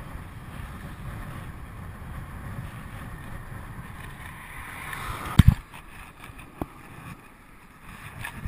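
Wind rushing over the microphone of a handlebar-mounted camera on a moving road bike, with steady road rumble. About five seconds in there is a sharp double knock, a lone click a second later, and then the rush is quieter.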